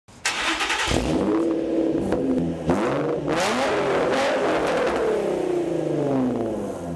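Nissan VQ35 V6 engine revved through an aftermarket Motordyne dual exhaust. A few quick throttle blips come first, then a longer rev that climbs and slowly falls away near the end.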